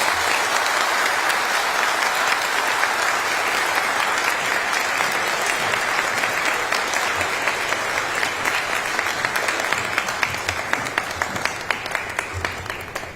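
Audience applauding at length after a speech, the clapping thinning and fading over the last couple of seconds.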